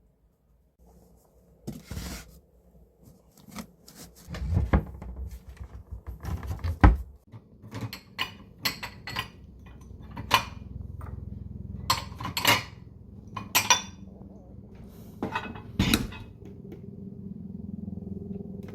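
Dishes and utensils being handled in a kitchen: a string of separate clinks and knocks, with a heavier knock about seven seconds in.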